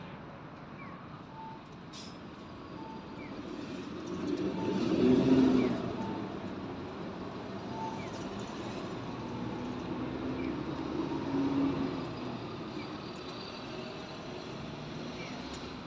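Road traffic: motor vehicles pass by, the loudest about five seconds in and another around eleven to twelve seconds in, over a steady background hum.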